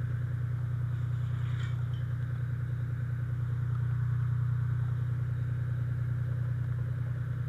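Fire engine's engine running steadily, a low, even drone with a fast throb.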